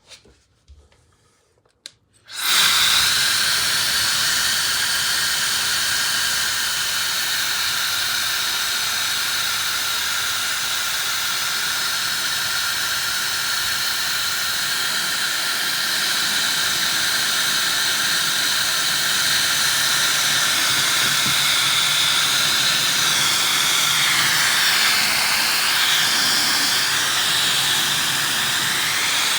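Dyson HD08 hair dryer switched on with a click about two seconds in, then running steadily: a hiss of rushing air with a high whine over it. Near the end the whine wavers up and down in pitch.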